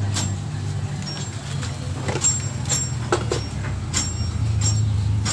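A series of sharp metallic clinks from a wrench working on an engine's exposed valve train and rocker arms, over the steady low hum of a running vehicle engine.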